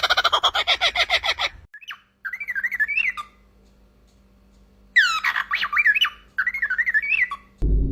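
A bird calling: a fast, rapidly pulsed chatter for the first second and a half, then two bouts of squawky, warbling calls that waver up and down in pitch, the second starting with a sharp rise and fall. A loud low sound comes in just before the end.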